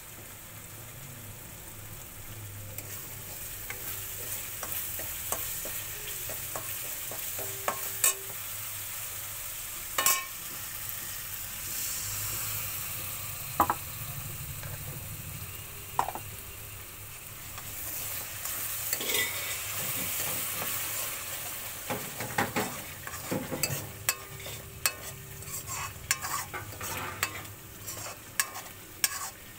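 A thick paste sizzling in oil in a steel wok while a steel ladle stirs and scrapes it. Sharp clinks of the ladle against the pan come a few seconds apart at first, then quickly one after another near the end.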